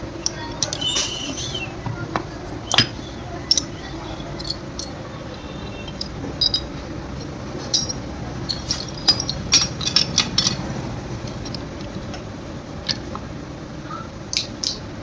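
Irregular light metallic clinks and taps of tools and metal parts being handled, over a steady background hum.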